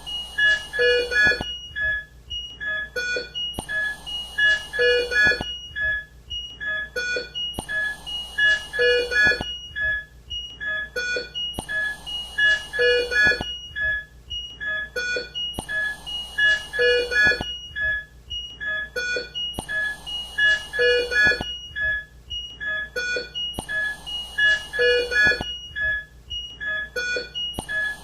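ICU patient monitor beeping at several fixed pitches over a mechanical ventilator that cycles about every four seconds. Each cycle brings a short hiss and a cluster of beeps, with single beeps in between.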